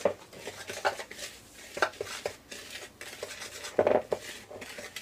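A metal utensil stirring a dry flour mix in a plastic bowl, clicking and scraping against the bowl's side at irregular moments, with a louder cluster of scrapes about four seconds in.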